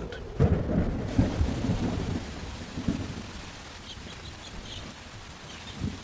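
Thunder rumbling, loudest in the first two seconds, over the steady hiss of heavy rain that sets in about a second in and slowly eases. Faint bird chirps come in near the end.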